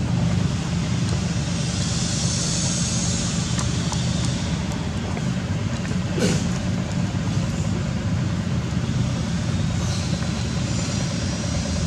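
Steady low hum of a motor vehicle engine running, with a light hiss above it that swells a little twice. A single short click about six seconds in.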